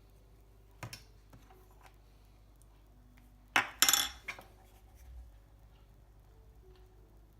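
A spoon and crockery clinking in a home kitchen: a light clink about a second in, then a louder cluster of clinks and knocks around the middle.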